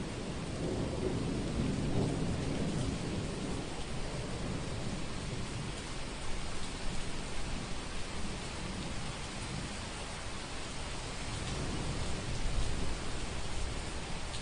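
Heavy rain falling steadily with rumbling thunder. The thunder is strongest in the first few seconds and then dies down under the rain.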